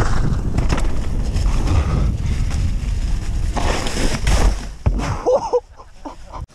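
Wind buffeting the camera microphone over the rumble and rattle of a Commencal Meta AM enduro mountain bike riding fast down a leaf-covered dirt trail. The noise drops away about five and a half seconds in as the bike slows, just after a brief pitched squeal or call.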